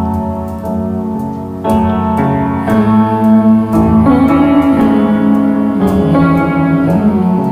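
Background pop music: an instrumental passage with piano chords changing every second or two.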